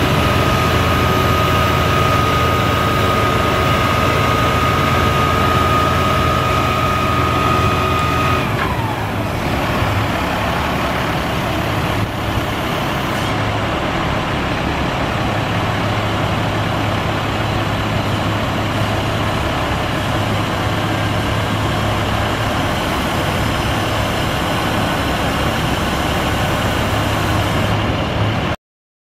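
A 2008 International 7500 crane truck's diesel engine runs at raised speed with a steady high whine from the hydraulics while the National crane boom is worked. After about eight seconds the whine and engine note drop in pitch as the engine slows, and the truck then runs steadily until the sound cuts off suddenly near the end.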